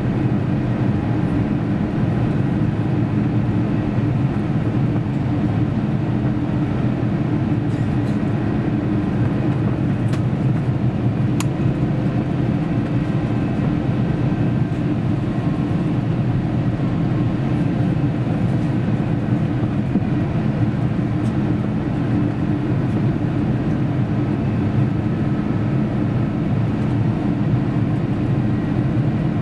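Steady cabin rumble of an Airbus A350 on final approach: airflow over the airframe together with its Rolls-Royce Trent XWB engines running at approach power, heard from a window seat.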